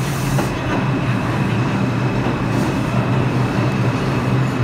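New York City subway train pulling into an underground station, its cars running past the platform with a steady, loud rumble of wheels on rail.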